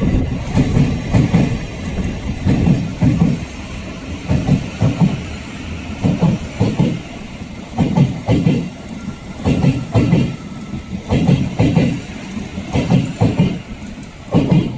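Railcar wheels clacking over rail joints: a steady rumble broken by repeated knocks, mostly in close pairs, as the wheelsets cross each joint.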